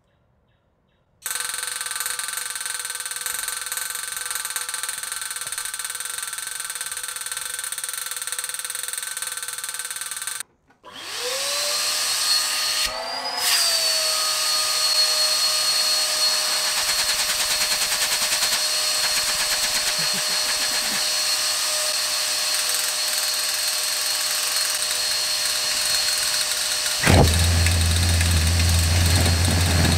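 Vacuum-cleaner blower motor running with a steady whine, blowing air into a homemade kerosene-fed jet engine. It cuts out about ten seconds in, then spins back up with a rising whine. Near the end the engine lights and a loud low combustion rumble takes over.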